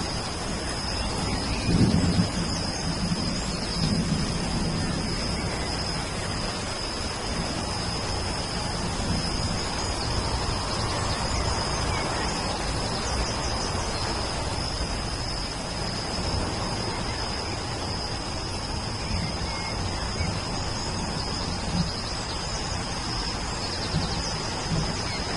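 Steady rain falling, with low rumbles about two and four seconds in, under a constant high-pitched tone.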